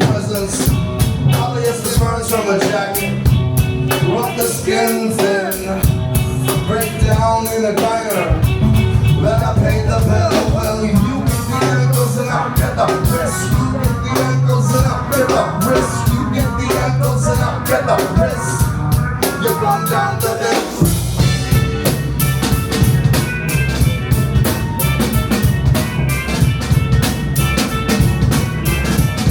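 Live rock band playing a long instrumental stretch of a song, with the drum kit keeping a steady beat under bass and other instruments. After a brief drop about two-thirds of the way through, the bass comes back fuller and steadier.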